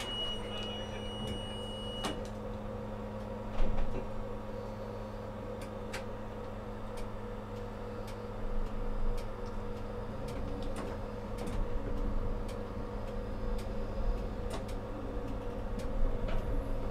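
Tram heard from the driver's cab: a steady electric hum while it runs, with sharp clicks and knocks from the wheels over rail joints and points, one louder knock a few seconds in. A high electronic beep sounds for about two seconds at the start.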